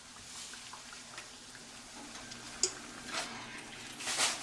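Chimichangas frying in hot oil: a steady sizzle, with a couple of sharp clicks and a louder flare of hiss near the end.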